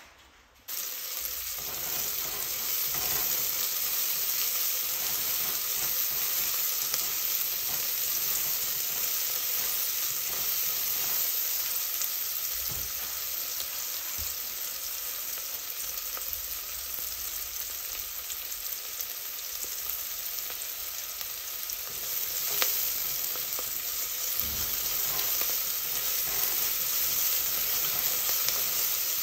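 Diced red onion sizzling in hot oil in a nonstick pot: a steady frying hiss that starts abruptly just under a second in. There is one brief sharp tick about two-thirds of the way through.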